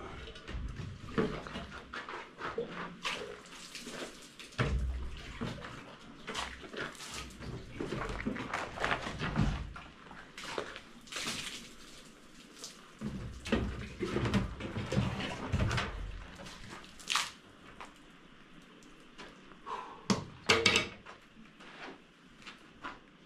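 Irregular scraping and knocking of hand work with tools, with a few heavier low thumps.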